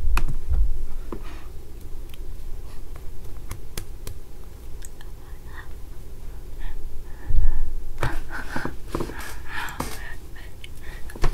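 A boy's faint whispering and breathy voice close to a microphone, with low bumps from the microphone being handled near the start and about seven to eight seconds in.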